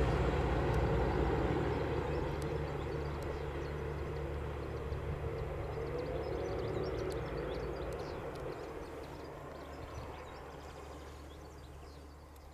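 Renfe diesel multiple unit moving away along the track: its engine drone and running noise fade steadily until they are barely heard near the end.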